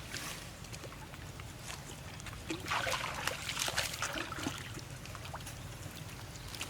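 Water splashing and trickling, with a burst of louder splashing a little before the middle.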